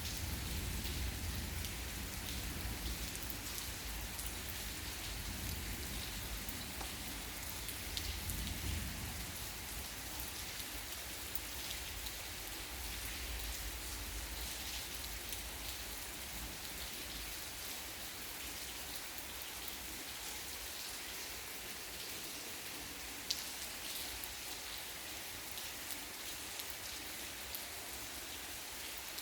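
Steady rain falling, with individual drops ticking on a nearby surface. A low rumble from thunder fades away over the first ten seconds or so.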